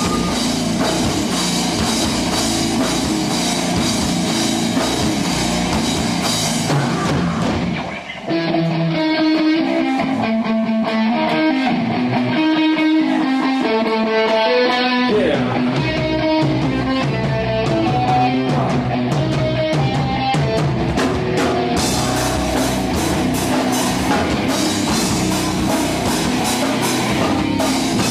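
Live nu-metal band with distorted guitars and drum kit: one song ends about 7 seconds in, and after a brief gap the next opens with a melodic riff on its own, no drums. Bass and low end come in about halfway through, and the full band with cymbals crashes in near the end.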